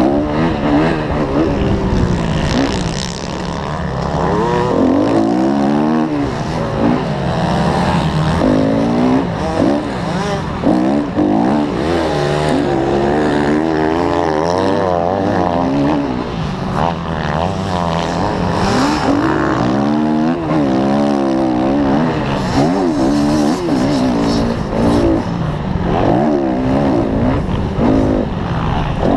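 Motocross bike engine, heard from the rider's helmet, revving up and dropping back again and again as the rider accelerates, shifts and rolls off through the track's turns and jumps.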